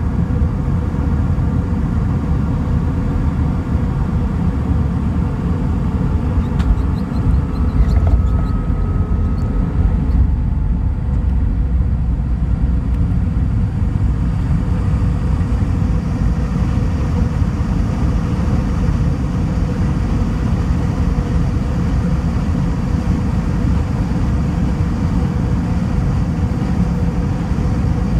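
Airbus A320ceo landing, heard from inside the cabin over the wing: a steady rumble of engines and airflow, a few thumps about a quarter of the way through as it touches down, then the rumble of the wheels rolling down the runway with the spoilers up.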